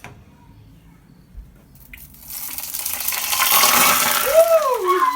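Hot deep-frying oil poured into a kitchen sink, setting up a loud sizzling hiss that starts about two seconds in and keeps going, with a brief rising-and-falling tone near the end.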